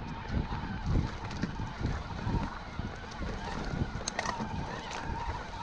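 Specialized Turbo Levo SL e-mountain bike being ridden: a steady motor whine under repeated low thuds of wind and bumps, with a couple of sharp clicks about four seconds in.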